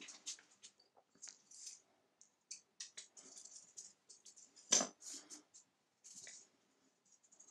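Light handling noises of cast aluminum soft vise jaws being fitted onto a steel bench vise: short scrapes and clicks, with one louder knock about five seconds in as a jaw meets the vise.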